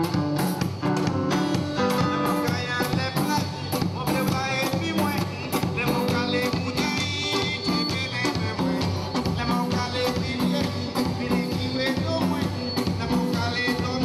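A live band playing an upbeat song with a steady beat, led by a singer with a guitar.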